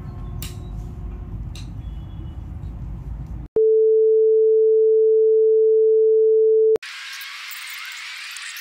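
A steady single-pitch test-tone beep, the loudest sound here, starts abruptly about three and a half seconds in and cuts off sharply about three seconds later. Before it there is low rumbling outdoor noise with a few clicks; after it comes a short burst of hiss.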